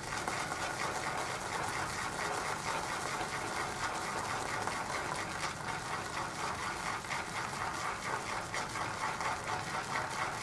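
Shaving brush whipping shaving soap into lather in a bowl: a steady wet swishing made of quick, even strokes. The brush is pressed down into the bowl as the lather builds and thickens.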